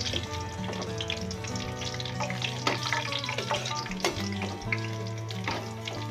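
Kerupuk crackers frying in hot oil in a wok, sizzling as they puff up while a spatula stirs them, with a few sharp clicks. Background music plays over it.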